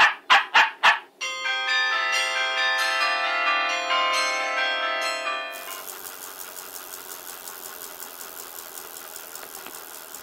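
Four quick knocks, then a cluster of bells ringing together for about four seconds. The bells stop suddenly and a faint steady hiss follows.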